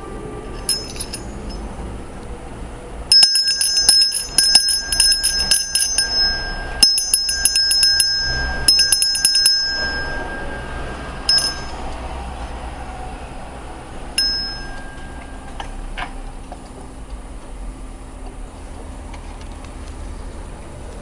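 Nickel-plated steel hand bell being rung. A single stroke comes about a second in, then bursts of rapid strokes follow from about three to ten seconds, and single strokes come again near eleven and fourteen seconds. The bell's clear ringing tone lingers after each burst.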